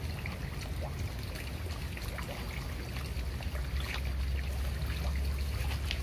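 Steady trickling of water over a low rumble, with scattered faint ticks.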